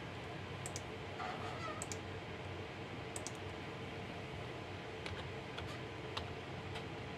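Mouse clicks and computer keyboard keystrokes: scattered sharp clicks in the first half, then a quicker run of key taps in the second half, over a steady background hum.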